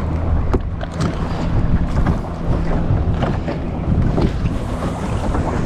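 Wind buffeting the microphone over open water, with the steady low hum of a passing outboard motorboat underneath that fades near the end. A click or two of rod handling.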